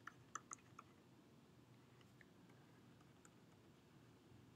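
Near silence, with a few faint clicks of a stylus tapping a tablet screen while writing, most of them in the first second.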